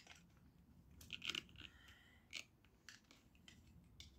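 Screwdriver prying at a clip on an electric motor's end housing: a few faint clicks and scrapes of metal tool on the casing, the most about a second in.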